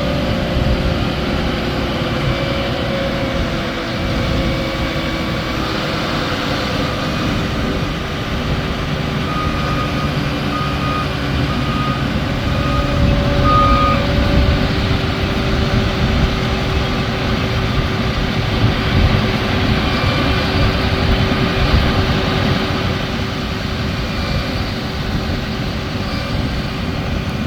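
Tractor and potato-harvesting machinery running steadily. About a third of the way in, a reversing alarm gives a run of about seven short, high beeps.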